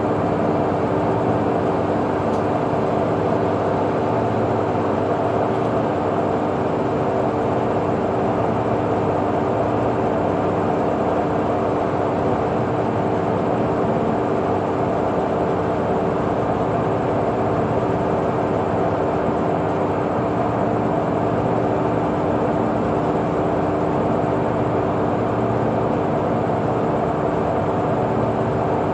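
WAP1 25 kV AC electric locomotive standing energised and idling: its auxiliary machinery gives a steady hum and whir with a few fixed tones that does not change.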